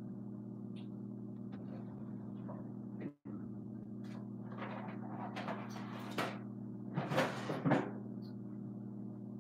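A steady low hum, with rustling and knocking of someone rummaging about, as for a pair of scissors, that gets busier in the second half. The sound cuts out completely for a moment about three seconds in.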